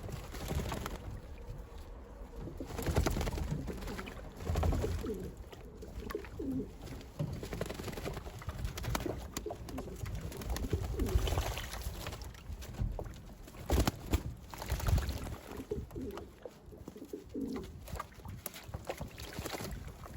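Racing pigeons cooing repeatedly in their loft, low rolling calls, with scattered sharp clicks throughout.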